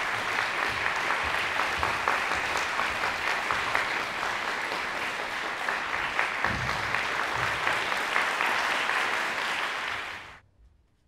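Audience applauding, a dense steady clatter of many hands clapping that dies away quickly near the end.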